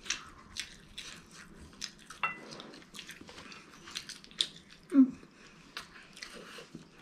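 Close-up eating of crispy fried chicken: crunchy bites and chewing, a run of short crackles and mouth clicks. A brief vocal sound about five seconds in is the loudest moment.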